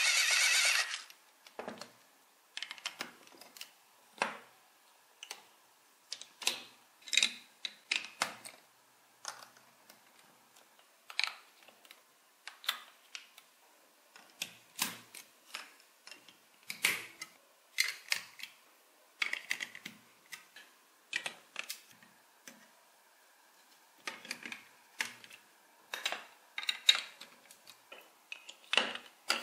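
Large plastic toy building bricks and gear pieces being handled and pressed together: irregular sharp clicks and taps, a few at a time. A loud steady sound cuts off about a second in.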